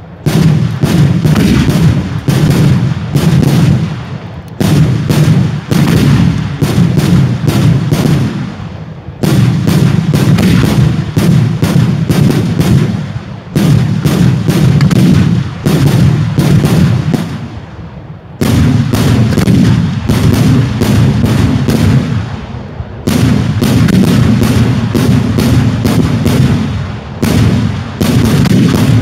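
Daylight fireworks display: rapid volleys of loud aerial shell bursts fired in quick succession. Each volley lasts about four to five seconds, with short breaks between them.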